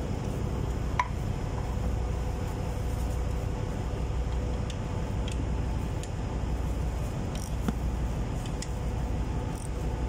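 Steady low hum of shipboard machinery, with a sharp metallic clink about a second in and a lighter click near the end, as the metal clamp and its bolt are fitted onto a Wilden air-operated diaphragm pump.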